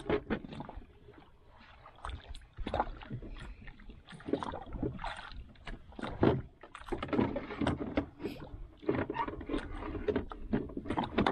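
A fishing handline being hauled in hand over hand in a small wooden outrigger canoe: an irregular run of knocks, scrapes and rustles from hands, line and hull.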